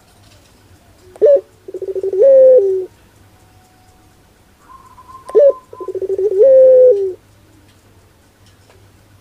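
Barbary dove (puter) calling twice, about four seconds apart. Each call is a short sharp note, then a quick stuttering run that swells into a long drawn-out coo, dropping in pitch at the end.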